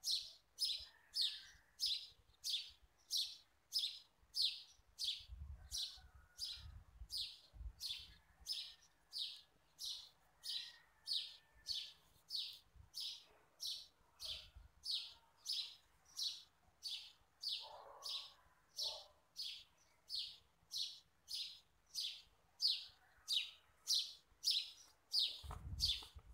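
A small bird chirping, a short high chirp repeated very steadily about one and a half times a second, with a few faint low thumps in between.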